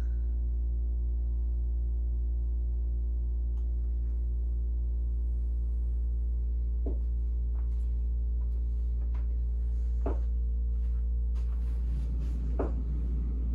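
Steady low mechanical drone made of several even, unchanging tones, with a few faint short clicks about seven, ten and twelve and a half seconds in.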